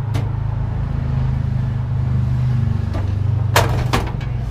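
An engine idling with a steady low rumble. Near the end come two sharp metallic knocks as the steel compressor box is handled against its mounting bracket.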